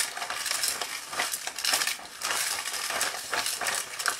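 Ice and rock salt crunching and rattling around the turning drum of a hand-cranked TYCO Doctor Dreadful Ice Scream Machine, a continuous gritty clatter that swells and dips as the crank goes round. The ice cream mixture is freezing onto the cold drum in layers as it turns.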